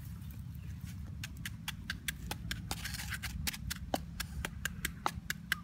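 Wooden pestle pounding rapidly in a small mortar bowl: quick, even knocks, about six or seven a second, starting about a second in, over a steady low rumble.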